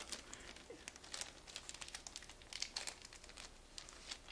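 Thin plastic wrapping crinkling faintly in irregular little crackles as a phone is pulled out of its sleeve by hand.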